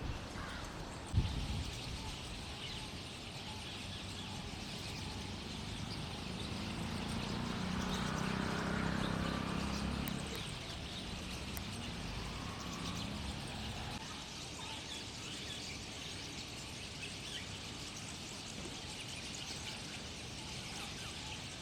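A roosting flock of rosy starlings keeping up a dense, continuous chatter of squeaks and chirps. A low rumble swells and fades midway, and there is a single sharp knock about a second in.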